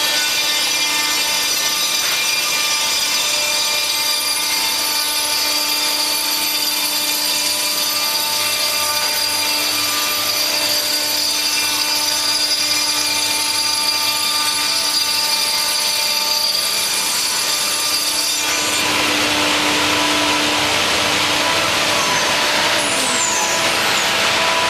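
C.R. Onsrud CNC router spindle running with a steady high whine as the cutter works through material. About three-quarters of the way in the sound changes to a rougher, hissier cutting noise.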